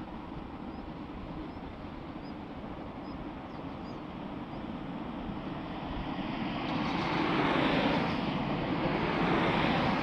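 A 285-series Sunrise Izumo electric sleeper train approaching at a crawl along a straight: a steady rumble and hum that grows louder from about seven seconds in.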